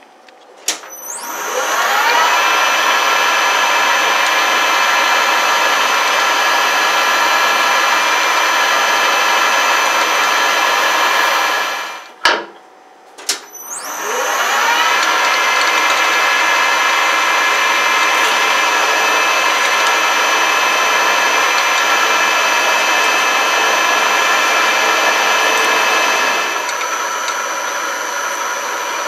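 Harrison M250 metal lathe spinning up and running steadily while machining and drilling a knurled metal knob. It stops about twelve seconds in with a click, then spins up again and runs on, a little quieter near the end.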